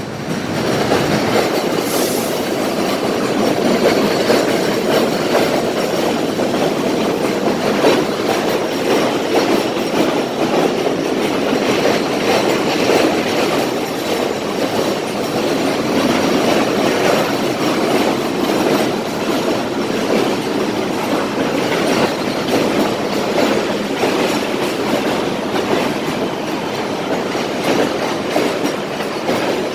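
R32 subway train running on the elevated steel structure of the J line overhead: a loud, steady noise of steel wheels on the el that holds throughout, with one sharp bang about two seconds in.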